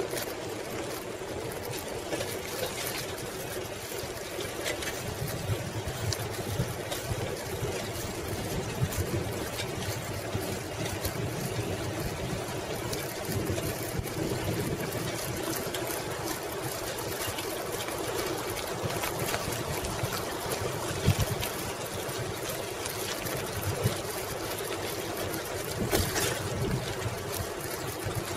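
A 1995 Schwinn Classic Cruiser bicycle rolling along a paved path, heard from a camera mounted on the bike: a steady rumble and hiss of tyres and rushing air, with a few sharp knocks and rattles from bumps, the loudest about two thirds of the way in.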